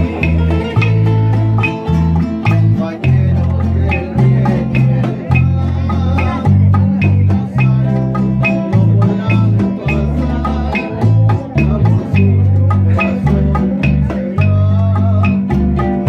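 Instrumental music from a string trio: plucked and strummed guitars in a steady rhythm over a prominent bass line that changes notes every half second or so.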